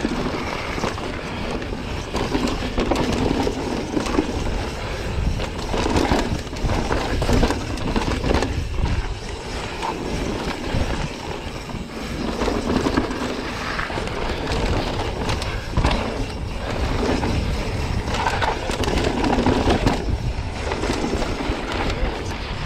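Pivot Firebird mountain bike descending a loose, rocky dirt trail at speed: tyres rolling and sliding over dirt and stones, with a running clatter and knocks from the bike as it hits rocks.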